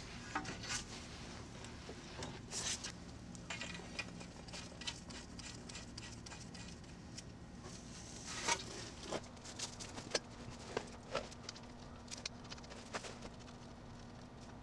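Faint, scattered clicks and light taps of metal suspension parts and nitrile-gloved hands as a new control arm's outer ball joint stud is lined up into the steering knuckle, over a faint steady hum.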